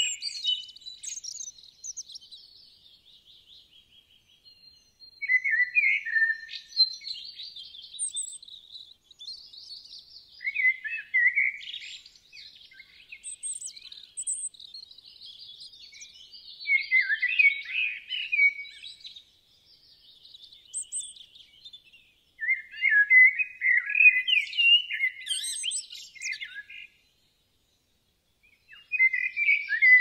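Songbirds singing in bursts of quick chirps and warbling trills. Each phrase lasts one to a few seconds, with short quiet gaps between.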